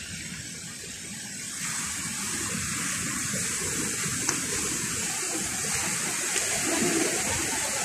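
Rough sea surf washing onto a pebble beach: a steady rush of breaking waves that swells louder about a second and a half in.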